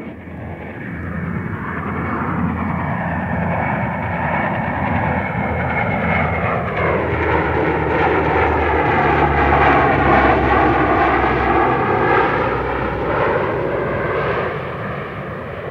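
Fairey prototype helicopter with two turboprop engines passing overhead. Its engine sound grows louder, is loudest about two-thirds of the way through, then begins to fade, and its tone sweeps down and back up as it goes over.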